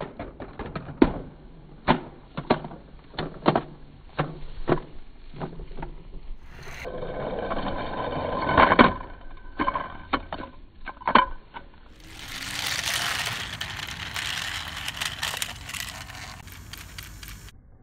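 Small plastic toy vehicles rolling and tumbling down a board ramp and plastic track: a string of sharp knocks and rattles, then a steadier rolling noise over the last six seconds or so.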